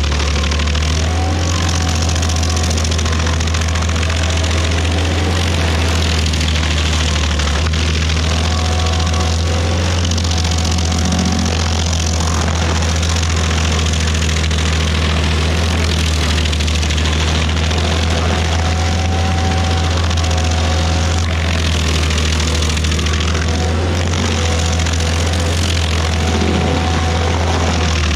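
Rayco RG50 stump grinder's engine running steadily under load as its toothed cutter wheel grinds through a maple stump below ground level, with a continuous hiss of wood chips being thrown.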